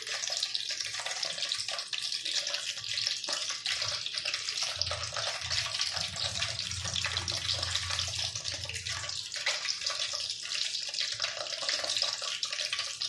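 Gulab jamun dough balls deep-frying in oil, sizzling and crackling steadily as they puff up. A low hum joins for a few seconds in the middle.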